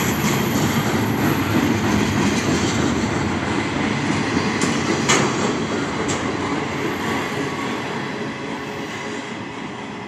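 Freight cars of a mixed freight train rolling past: a steady rumble of steel wheels on the rails with scattered clicks and one sharp metallic click about five seconds in. The sound fades over the last few seconds.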